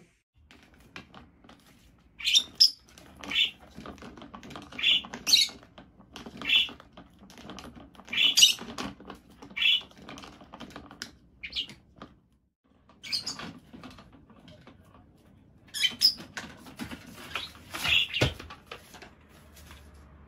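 Plastic swing-top waste-bin lid flapping and clattering as a small green parrot pushes and plays with it: a run of light clicks and taps with a dozen or so short, sharp high squeaky notes. A single low thud comes near the end.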